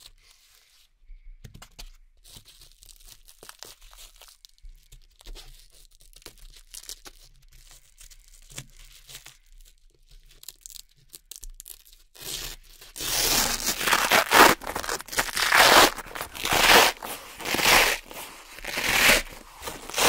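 Red hook-and-loop (Velcro) strips pressed down and smoothed by hand, with faint rubbing and light clicks. About twelve seconds in, a strip is peeled back off the board in a run of loud ripping pulls, roughly one a second.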